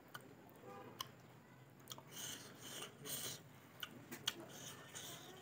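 Eating by hand: rice and curry squished and mixed with the fingers on a steel plate, with chewing and a few sharp clicks. A soft rustling squish rises between about two and three and a half seconds in.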